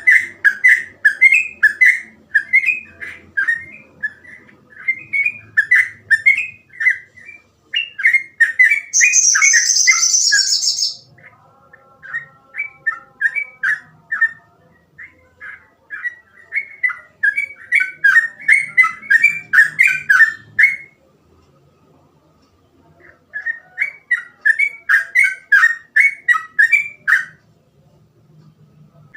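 Sooty-headed bulbul singing a fast, continuous run of short whistled notes, with a brief harsh, high-pitched burst about nine seconds in and a pause of about two seconds a little after twenty seconds.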